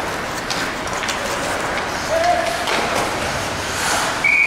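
Ice hockey rink: crowd chatter with scattered clicks and clacks of sticks, skates and puck on the ice. Near the end a referee's whistle blows one long steady note as play is stopped with the goalie covering the puck.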